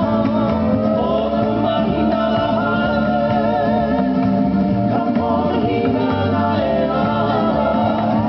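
A Hawaiian hula song: a singing voice holds long notes that glide between pitches over a steady bass line.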